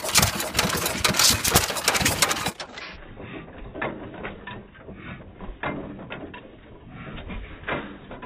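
Galloway 2 1/4 horsepower antique stationary gas engine running, with a rhythmic mechanical clatter of its valve gear and ignitor. The clatter is loudest for the first couple of seconds, then settles to lighter, irregular clicking.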